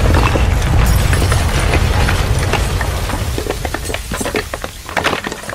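Earthquake and building-collapse sound effect: a deep rumble with crackling and clattering debris. The rumble fades after about three seconds, leaving scattered clatters of falling rubble.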